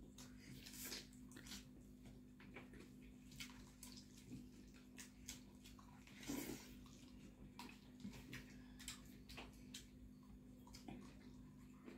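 Quiet, wet eating sounds: lip smacks and chewing as fried chicken and rice are eaten by hand, in short scattered clicks, the loudest about six and a half seconds in.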